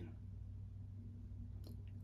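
Quiet room tone with a steady low hum, and a faint click near the end, in a pause between spoken sentences.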